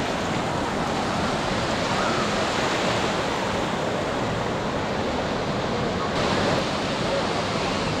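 Ocean surf washing onto a sandy beach, a steady rush, with faint voices of a crowd of bathers mixed in.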